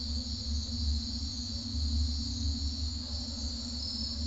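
Crickets chirring steadily at night over a low, steady droning rumble.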